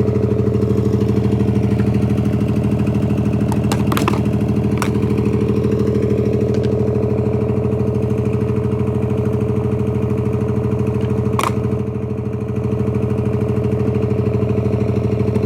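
An engine or motor runs steadily with an even, unchanging hum. A few sharp clicks come about a third of the way in, and one more about three quarters through.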